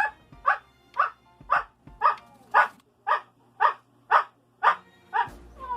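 Siberian husky barking in a steady count, about two barks a second, some eleven barks in a row: a trained trick of barking out a number as the answer to a question.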